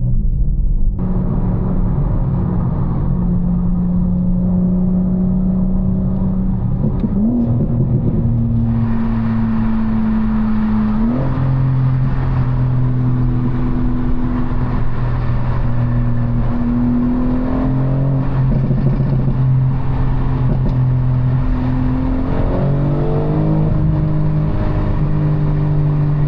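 BMW G82 M4's twin-turbo inline-six pulling steadily while driving, with road noise underneath; the engine note rises in pitch a few times as the revs climb, then holds steady.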